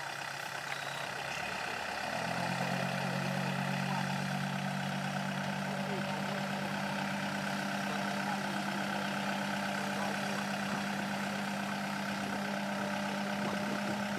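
Heavy diesel machine engine running, picking up revs and getting louder about two seconds in, then holding a steady note.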